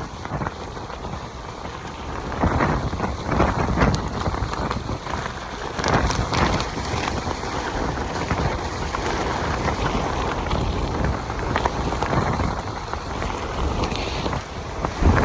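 Heavy rain pouring down in a microburst, with gusting wind that swells and buffets the microphone several times.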